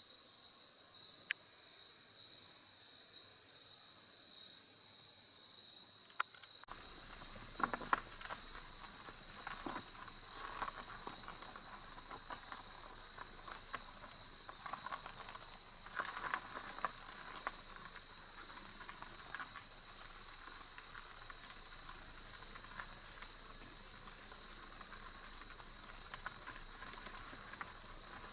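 Evening insect chorus: a steady high-pitched drone that holds throughout. From about seven seconds in, scattered crackles and rustles join it for a while.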